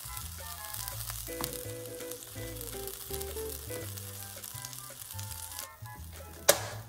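Buttered bread of grilled turkey-and-cheese sandwiches sizzling in a pan on a flat-top griddle, over background music with a simple melody. The sizzle cuts out near the end, followed by a single sharp click.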